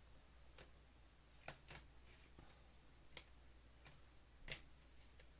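Near silence with a low steady hum and about six faint clicks and taps from trading cards being handled.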